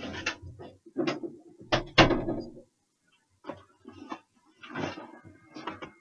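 A series of irregular knocks and thumps, the loudest about two seconds in, followed by quieter scattered clicks and clatter.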